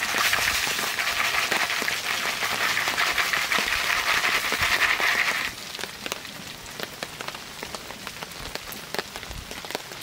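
Popcorn popping fast inside a foil stovetop popcorn pan held over a wood fire: a dense, rain-like patter of pops and sizzling. About five and a half seconds in it suddenly thins out to sparser, quieter pops and crackles.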